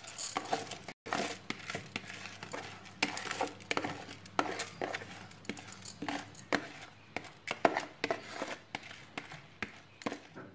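Washed raw rice being scraped out of a plastic bowl with a plastic spatula into a pot: irregular scraping and scratching with many small clicks of plastic on plastic and grains dropping.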